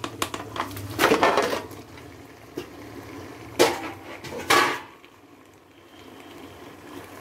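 Metal plate clanking against a large metal cooking pot as raw chicken pieces are tipped into the gravy: a burst of clatter about a second in, then two sharp clanks a second apart, quieter afterwards.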